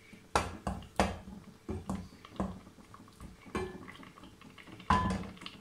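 Heavy wooden spoon stirring and mashing soft-cooked fruit in an aluminium pot, knocking against the metal about six times at uneven intervals, the loudest near the start and near the end.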